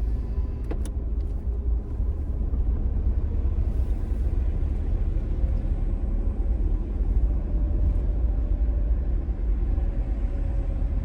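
Steady low rumble of a vehicle driving, heard from inside the cabin, with one short click under a second in.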